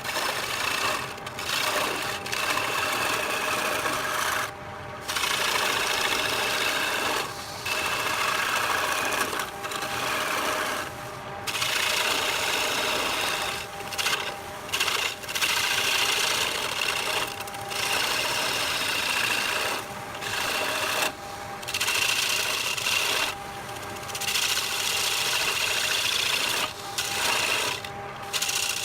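Wood lathe turning a wooden blank, the cutting tool scraping and rasping across the spinning wood over a steady motor whine. The cut breaks off briefly every few seconds as the tool comes off the wood between passes.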